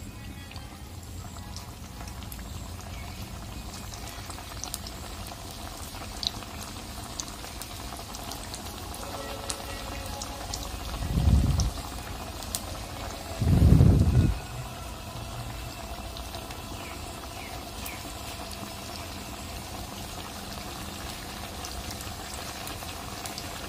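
Snack patties deep-frying in hot oil in an iron kadhai, a steady bubbling sizzle with scattered small pops as more patties are lowered in. Two short low rumbles come about halfway through.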